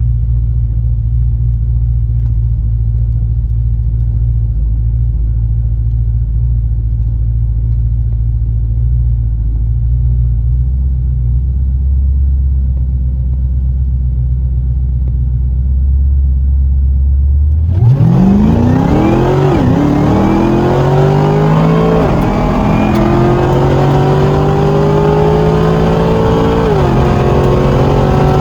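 Cadillac CTS-V wagon's supercharged V8 with a low steady rumble at the line, then launching at full throttle about eighteen seconds in. The engine note climbs and drops back at each of three upshifts during a quarter-mile drag pass, heard from inside the cabin.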